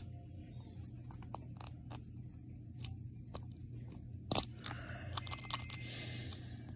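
Small metallic clicks and scrapes of a lock pick and homemade tension wrench working the pins of a Brinks R60 padlock: faint scattered ticks, one sharper click about four seconds in, then a quick flurry of clicks. A low steady hum runs underneath.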